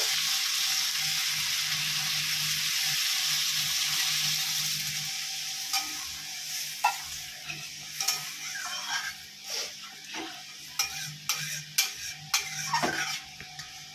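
Pointed gourd and potato sizzling in oil in a metal kadai as a metal spatula stirs them. The sizzle dies down about halfway through, once water is in the pan, leaving scattered scrapes and taps of the spatula against the pan.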